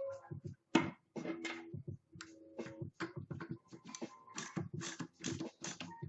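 Rifle parts being handled: irregular light clicks and knocks of the metal and wood parts of an M39 Mosin-Nagant being turned over and set down, several a second.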